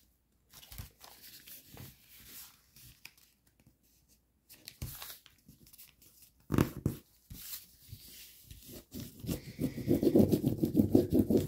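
Paper being folded and creased by hand: scattered soft rustles and clicks, a sharper crinkle about six and a half seconds in, then a quick run of rustling and rubbing near the end as the model is shifted and its folds pressed flat.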